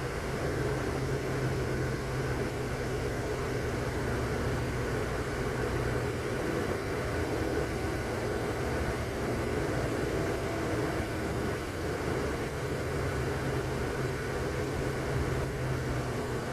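Steady rumble of a moving vehicle, with a constant low hum and no changes.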